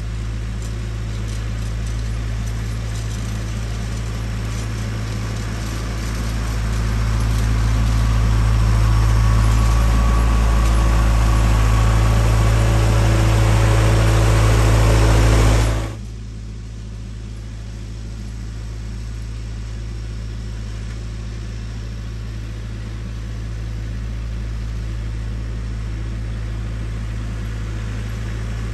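Compact tractor engine running steadily as it pulls a landscape rake across the lawn, growing louder as it comes close. About halfway through it drops suddenly to a lower, steady hum.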